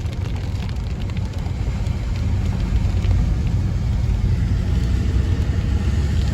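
Road and engine noise inside a moving car's cabin: a steady low rumble that grows slightly louder.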